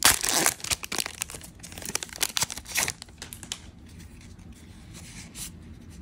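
Magic: The Gathering collector booster pack wrapper being torn open by hand: a loud rip at the start, then crinkling and rustling strokes over the next couple of seconds. After that, quieter rustling as the cards are handled.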